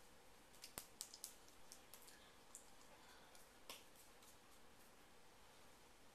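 Near silence: quiet room tone with a few faint clicks, a quick cluster in the first two seconds and one more just before four seconds.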